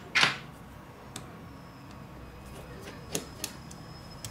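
Small hand tools handled on a tabletop: a brief clatter just after the start, then a few light clicks as a screwdriver is picked up.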